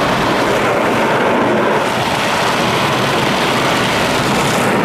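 PDQ Tandem automatic car wash spraying water over the car, heard from inside the cabin: a loud, steady rush of water beating on the roof, sunroof and windshield.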